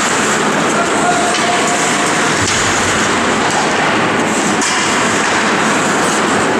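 Steady noise of ice hockey play in a rink: skates scraping on the ice, with a couple of faint clicks of sticks or puck.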